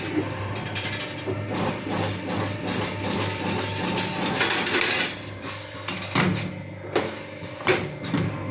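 CNC wire bending machine running through its cycle: a steady hum under mechanical clatter and stretches of hiss, with several sharp knocks in the second half.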